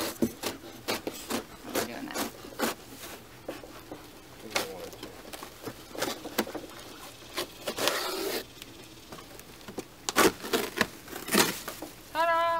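Cardboard box being cut open with a knife and its flaps pulled and folded back, with a run of rustling, scraping and crackling and two sharper knocks near the end.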